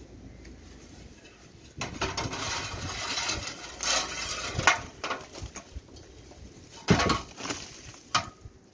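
Metal ladder being lowered and set against brickwork and scaffolding. It rattles and scrapes from about two seconds in, with sharp knocks, the loudest near seven seconds and another just after eight.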